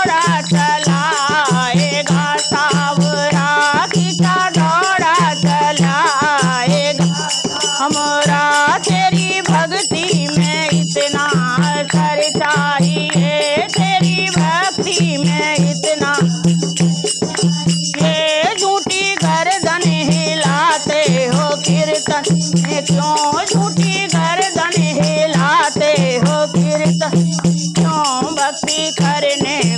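Women singing a Hindi devotional bhajan together, accompanied by a dholak barrel drum keeping a steady beat and hand rattles shaken throughout.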